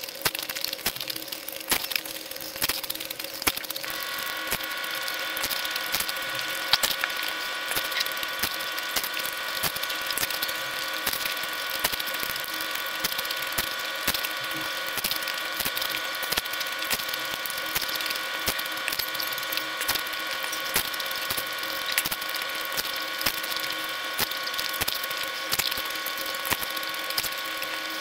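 Pani puri eating: crisp puri shells cracking and crunching with wet chewing and slurping, many quick sharp crackles one after another. A steady background hum with several tones comes in about four seconds in and holds.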